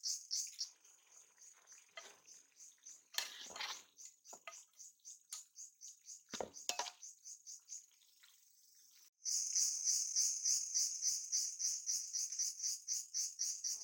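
Insects chirping in a steady rapid pulse, about five chirps a second, suddenly louder about nine seconds in. A few clinks and scrapes of a metal ladle in the cooking pot fall in the first half.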